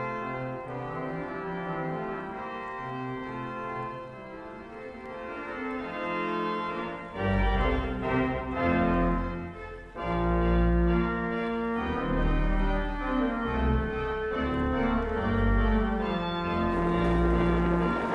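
Background organ music with sustained chords. Deep bass notes come in about seven seconds in and the music grows louder.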